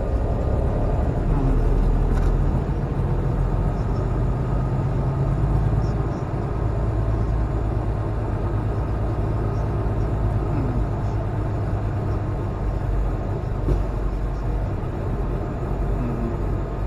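Semi truck's diesel engine running steadily under way, a continuous low drone with road noise.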